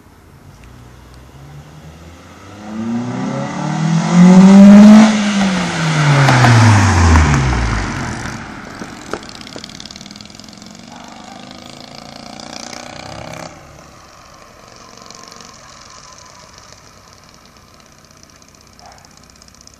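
2007 Toyota Corolla with a twin-loop exhaust accelerating hard away from the kerb. Its engine note rises to a loud peak about four to five seconds in, then drops sharply in pitch as it goes past and away. It revs again more faintly in the distance before cutting off. The exhaust has a raspy note, which the owner puts down to carbon build-up in the twin-loop exhaust.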